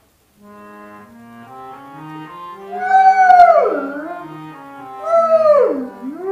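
A dog howling along to a slow melody of held notes: two long, loud howls, each starting high and sliding down, with a third starting at the end.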